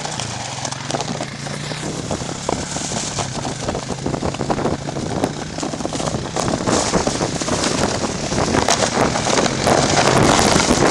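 Honda Rancher ATV's single-cylinder engine running as it tows a sled, under the scraping hiss of the sled sliding over snow and wind on the microphone. The sliding noise grows steadily louder as the sled picks up speed, and the engine tone fades under it by about halfway.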